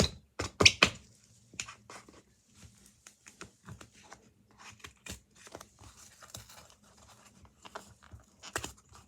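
A baking soda package being torn open by hand. There are a few loud tearing snaps in the first second, then a run of small crackles and tears.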